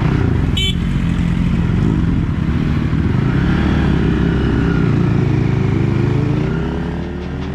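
KTNS RA2 Cyclone 250 motorcycle engine running at a junction, then pulling away, its revs rising near the end. A brief high chirp sounds about half a second in.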